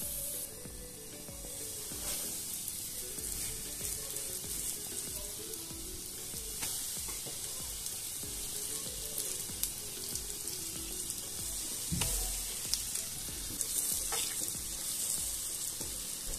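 Fish frying in oil in a pan: a steady sizzle, with a few light knocks and clicks scattered through it.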